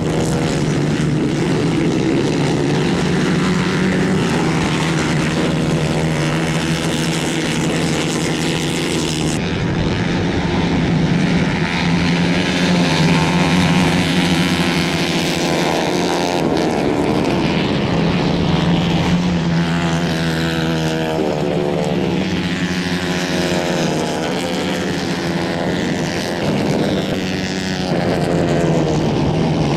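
Several 150 cc kayak-class racing karts running hard on a dirt track, their small engines buzzing at high revs. The pitch rises and falls repeatedly as the karts accelerate out of corners and lift off.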